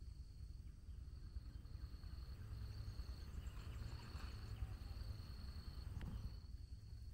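Faint outdoor ambience: a low rumble of wind on the microphone under a thin, high, steady insect trill, with a single click about six seconds in.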